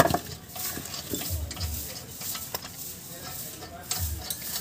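Lug nuts being spun by hand onto the wheel studs of a steel wheel: light metallic clicks and scrapes, with one sharp click at the very start.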